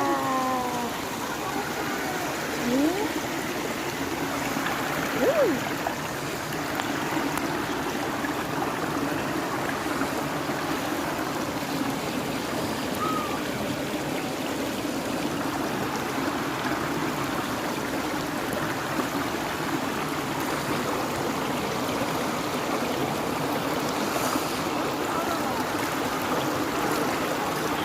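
Rocky forest stream flowing steadily, a constant rush of water. A couple of short pitched sounds break in during the first few seconds.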